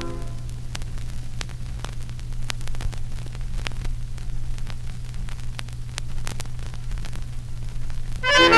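Vinyl record surface noise in the gap between songs: steady hiss and a low hum, with scattered crackles and clicks from the groove. Music starts again near the end.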